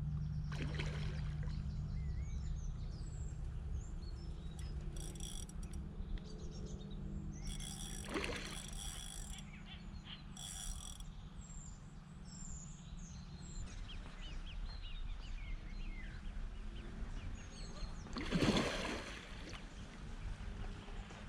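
Lakeside outdoor ambience: small birds chirping and calling over a steady low rumble, with a few brief louder noises, the loudest about three-quarters of the way through.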